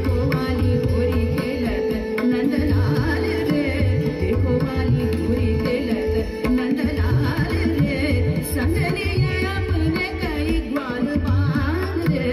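Indian classical-style music from the show's soundtrack over loudspeakers: a voice singing long, wavering lines over hand-drum beats and a steady held drone.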